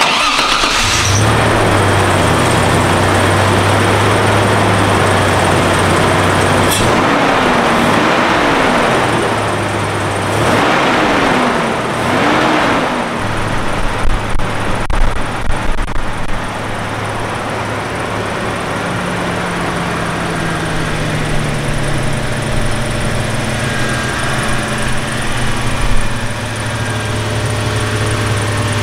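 Toyota 5VZ-FE 3.4-litre V6 running with an open cone-filter cold air intake, mostly at a steady idle, with a few brief rises and falls in pitch in the middle.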